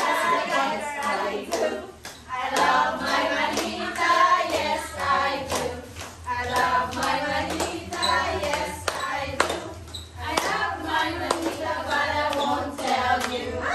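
A group of people singing together while clapping their hands along in time.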